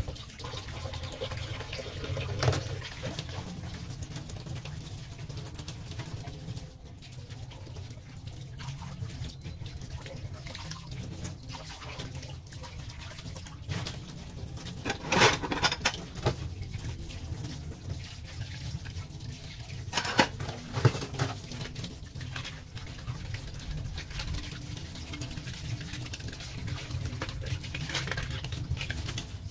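Tap water running steadily into a stainless steel sink while dishes are rinsed by hand, with a few sharp clinks of glassware and cutlery, the loudest about halfway through and again about twenty seconds in.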